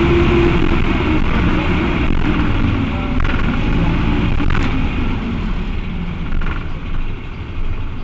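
Cummins ISBe four-cylinder diesel of an Agrale MT12.0 LE midibus heard on board, its engine-driven radiator fan engaged, which is typical of these Cummins engines' tendency to run hot. The engine note falls slowly and grows quieter over the second half.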